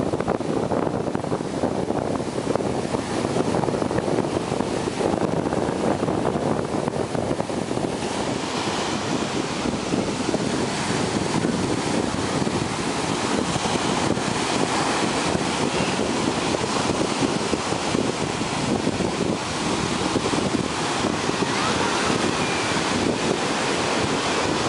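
Ocean surf breaking and washing up a sandy beach, a steady rush of waves, with wind buffeting the microphone. The hiss of the surf grows brighter about eight seconds in.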